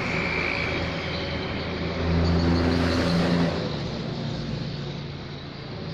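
A motor vehicle's engine running with a low, steady hum that swells about two seconds in and fades toward the end.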